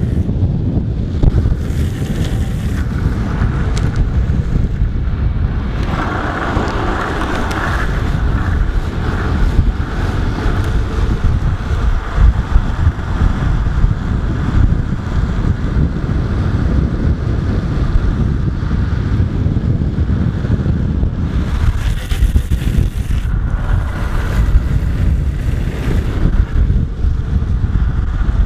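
Heavy wind noise buffeting the microphone over the steady rumble of skateboard wheels rolling fast on asphalt. A brighter hissing swells up about six seconds in and again a little past twenty seconds in.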